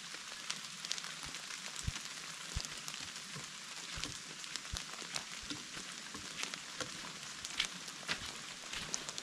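Rain falling steadily with a hiss, with many small drips ticking close by, and soft low thuds of footsteps on the wet track every second or so.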